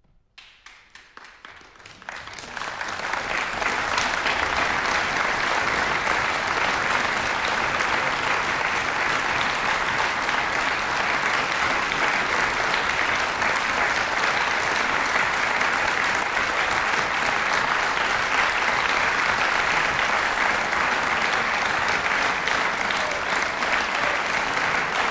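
Audience applauding: a few scattered claps at first, building within about three seconds into steady, full applause.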